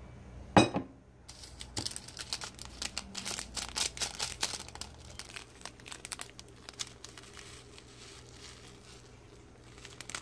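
A sharp knock about half a second in, then a plastic seasoning sachet from an instant ramen pack crinkling and tearing open in the hand over a bowl of noodles. The crinkling is dense for a few seconds and thins out after about the middle.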